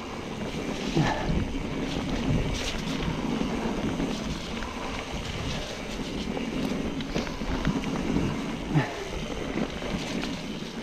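Trek Fuel EX 9.8 29 mountain bike riding a wet singletrack trail: tyres on wet dirt and roots, with the bike knocking and rattling over bumps and wind on the microphone.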